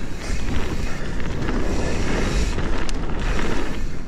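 Mountain bike riding down a wet, muddy trail: a steady rough rumble of tyres and bike over the ground, with wind buffeting the microphone. A single sharp click about three seconds in.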